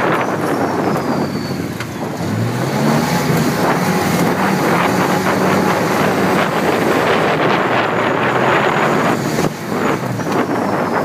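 Vehicle engine running, its pitch rising about two seconds in and then holding steady, under heavy wind noise on the microphone.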